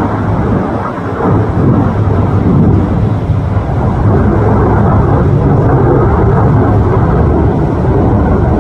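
Military fighter jet flying overhead: a loud, steady rumble of jet engine noise, dipping slightly about a second in.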